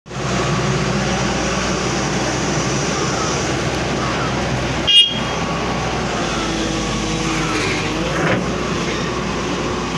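A heavy vehicle's engine running steadily with road noise, broken about halfway through by one short, high beep.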